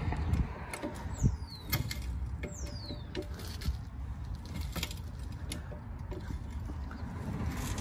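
2-ton hydraulic trolley jack being pumped by its long handle to lift a car: clicks and knocks from the pump strokes, and two high squeaks falling in pitch in the second and third seconds.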